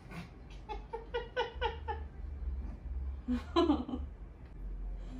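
Women giggling nervously: a quick run of high 'ha-ha-ha' giggles, about four a second, starting just under a second in, then another louder burst of laughter a couple of seconds later.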